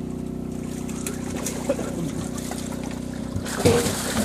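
Steady low hum of a running motor. About three and a half seconds in, water sloshes and splashes as a landing net is worked through a tank of live carp.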